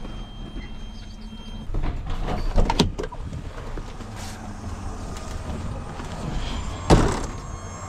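Delivery truck cab as the driver climbs out: a steady hum stops about two seconds in, a few clunks and clicks follow, and a single sharp bang near the end, the cab door slamming shut.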